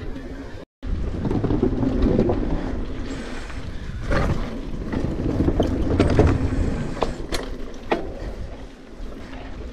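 Wind rushing over an action camera's microphone and mountain bike tyres rolling over dirt singletrack, with several sharp knocks and rattles from the bike over bumps. The sound drops out for a split second under a second in.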